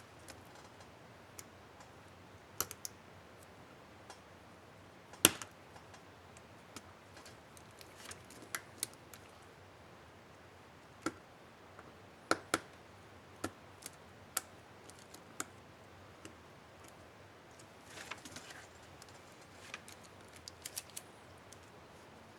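Irregular small plastic clicks and snaps on an HP DV4 laptop keyboard, about a dozen, the sharpest about five seconds in: the space bar keycap being handled, clipped on and pressed.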